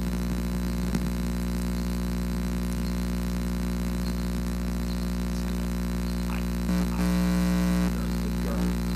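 Steady electrical hum with many evenly spaced overtones, the buzz of a corded microphone line. About seven seconds in it turns louder and buzzier for about a second, then drops back.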